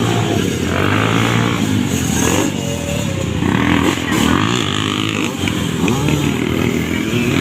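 Several dirt-bike engines revving, their pitch rising and falling continuously and overlapping as the bikes race.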